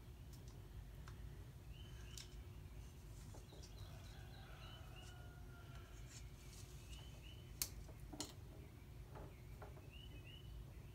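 Faint bird chirps, short chirps often in pairs, coming every second or two over a low steady rumble, with two sharp clicks close together past the middle.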